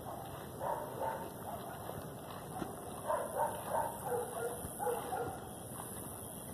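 A dog barking repeatedly: a couple of short barks about a second in, then a quicker run of barks from about three to five seconds in.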